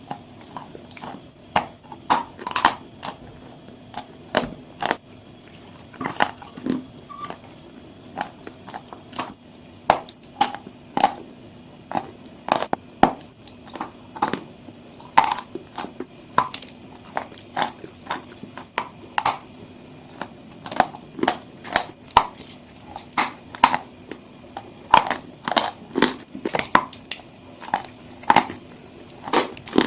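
Pieces of chalk being bitten and chewed close to the microphone: a long, irregular run of sharp, dry crunches, about one or two a second, with quieter crumbling in between.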